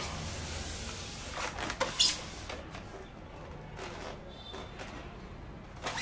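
Foam packing pieces and a metal strap bracket being pulled off a water heater's plastic body: rubbing and scraping, with a few knocks, the loudest one sharp about two seconds in.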